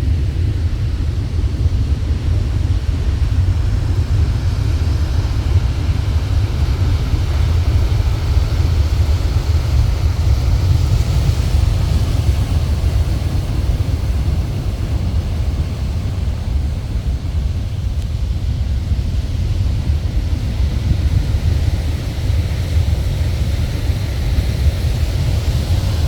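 Rough Pacific surf on a boulder beach in typhoon wind: a loud, steady low rumble with a hiss above it, the wind buffeting the microphone.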